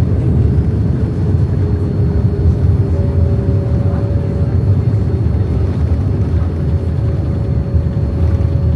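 Boeing 787-9 airliner noise: a loud, steady low rumble, with a faint steady hum joining about a second and a half in and another about three seconds in.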